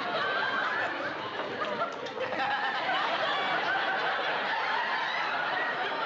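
Studio audience laughing, many voices at once, continuing without a break.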